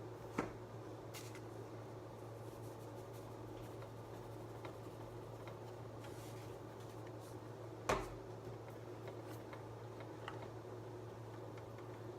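Quiet kitchen background: a steady low hum with a faint even hiss, broken by two brief knocks, one just after the start and one about eight seconds in.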